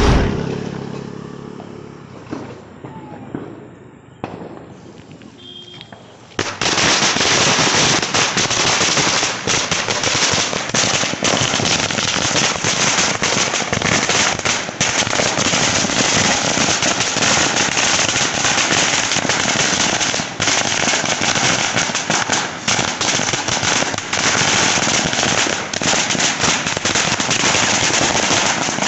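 A 10,000-shot string of firecrackers (a '10000 wala') going off. After a quieter first six seconds or so, a dense, unbroken rattle of rapid bangs starts suddenly and keeps up without a pause.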